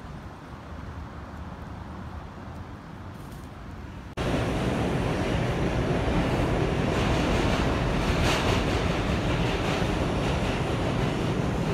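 Distant street traffic at first, then after a cut about four seconds in, a subway train running, heard from inside the car: a loud, steady rumble and rush of the wheels on the rails.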